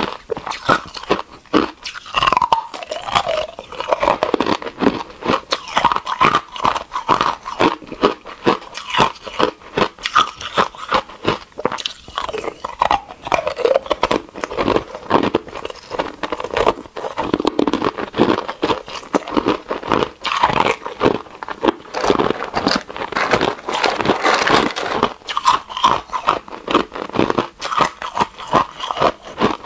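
Ice cubes being bitten and chewed, a continuous close-miked run of sharp crunches.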